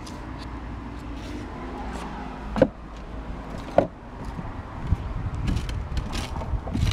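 Clay roof tiles clacking and knocking underfoot as someone moves across a tiled roof, with two sharp clacks in the middle, over a steady low rumble; toward the end, wind buffets the microphone with low thumps.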